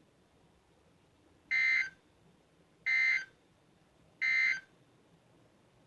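NOAA Weather Radio SAME end-of-message data bursts: three short, high-pitched electronic bleats about a second and a third apart, closing the required weekly test transmission.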